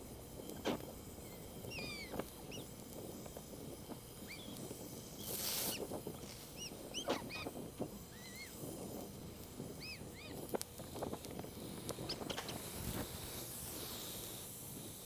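Gas torch flame hissing steadily as bronze brazing rod is melted into a joint on red-hot cast iron, with scattered sharp pops and crackles. Short, high, bird-like chirps come and go throughout.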